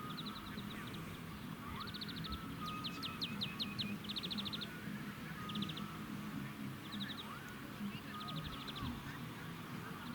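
A small bird singing short, rapid high trills, each about half a second long, repeated every second or two, over a steady low hum.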